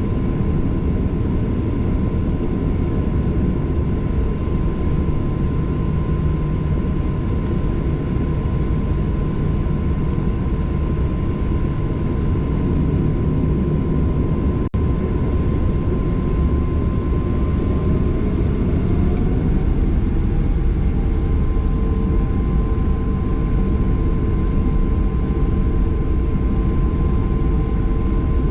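Cabin noise of a Boeing 737-800's CFM56 jet engines running steadily, a dense low rumble with a steady whine on top. About two-thirds of the way through, one tone in the engine noise rises slightly in pitch and then holds.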